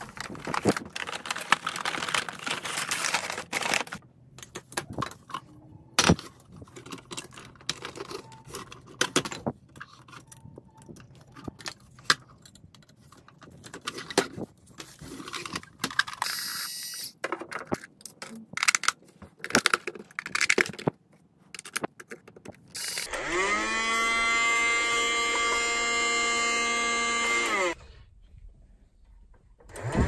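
Rustling and plastic clicks of a boxed toy vacuum cleaner being unpacked and handled. About 23 s in, its small battery-powered motor whirs up to a steady whine, holds for about five seconds and stops.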